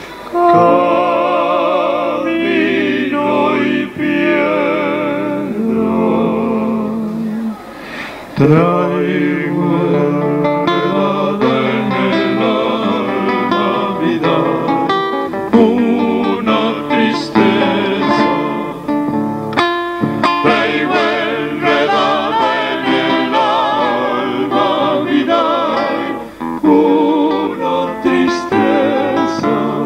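Live folk music. For the first eight seconds a male voice sings a slow line with a strong vibrato. About eight seconds in, an acoustic guitar comes in, plucked and strummed under male singing, and the two carry on together.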